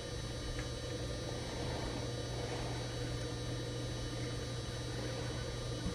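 Steady low electrical hum with background hiss, no distinct event.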